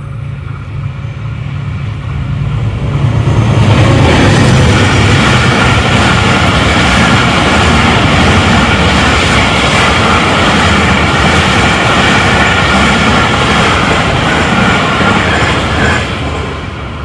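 Express passenger train hauled by a GE U20 diesel locomotive passing close by at speed. A low rumble builds over the first few seconds, then a loud, steady rush of coach wheels on the rails runs for about twelve seconds and fades near the end as the last coach goes by.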